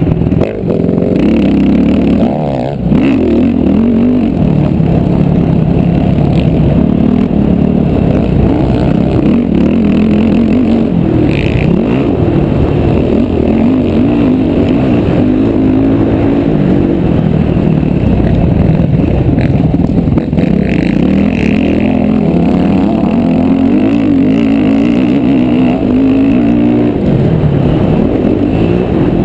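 Motocross dirt bike engine heard from the rider's own bike at race pace, revs rising and falling as the throttle is opened and shut through gears and corners, with two brief drops in engine level in the first few seconds.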